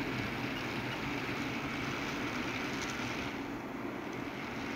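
HO-scale model train running along the track: the locomotive's small electric motor and the wheels rolling on the rails make a steady hum.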